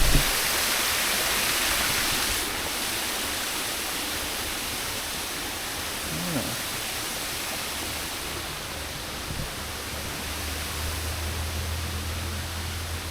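Misting spray system hissing steadily, louder for the first two and a half seconds and then easing off, with a low steady hum coming in about eight seconds in.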